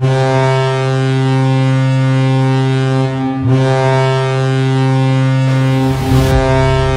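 Hockey goal horn blaring: a loud, steady, deep ship-style horn in two long blasts, with a short break about three and a half seconds in. A burst of noise joins it near the end.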